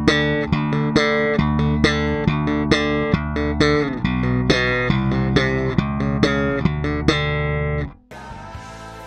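Electric bass (Fender Jazz Bass) played slap-style through the Boss GT-1B's 'Light' compressor setting: a loud, percussive run of notes with sharp attacks, several a second. It stops abruptly about eight seconds in, and quieter playing follows.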